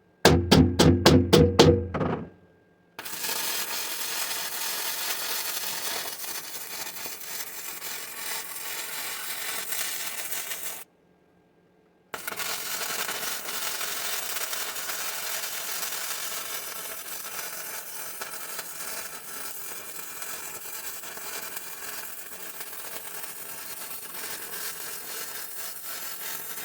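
A loud rapid pulsing for about the first two seconds, some four to five pulses a second. Then arc welding on the steel bucket: a steady crackle and hiss in two long runs, broken by a second of silence.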